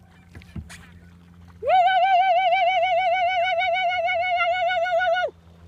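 A woman's long, loud, high-pitched "woo" yell, held for about three and a half seconds with a wavering pitch, then cut off sharply. It is shouted to flush the seagulls off the sandbar.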